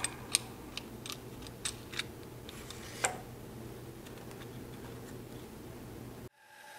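Light clicks and taps of a plastic featherboard and its knob hardware being set into the miter slot of a bandsaw's metal table and tightened, about seven sharp ticks over the first three seconds above a low steady hum. The sound cuts off abruptly near the end.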